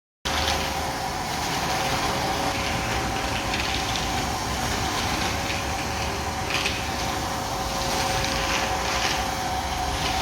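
Nilfisk Multi II wet and dry vacuum cleaner running steadily, a constant rushing noise with a steady whine. It cuts in suddenly at the start.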